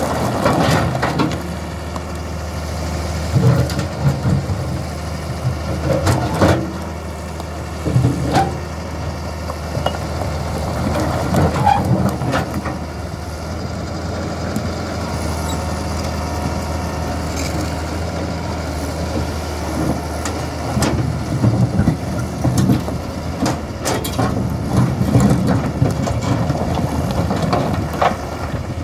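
Hitachi hydraulic excavator's diesel engine running steadily under load, with repeated knocks and clatter of large stones as the bucket pushes and rakes loose rock.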